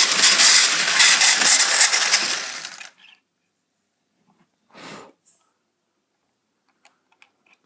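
Bachmann HO scale model locomotive running with a loud grinding rasp from its dry motor and gears, which the owner says need oiling. It cuts off suddenly about three seconds in, followed by one brief scrape and a few faint ticks.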